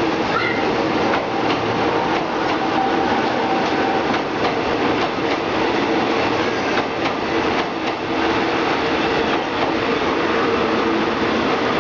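Electric commuter train passing close by: a steady run of wheel-on-rail noise with a low hum and scattered wheel clacks over the track.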